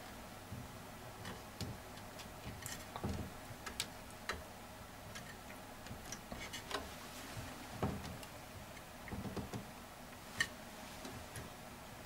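Faint, scattered light clicks and taps as hands position a Kingston 2.5-inch SSD and press it down onto double-sided tape in an open all-in-one PC chassis.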